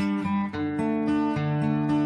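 Background music: acoustic guitar picking and strumming chords in a steady rhythm.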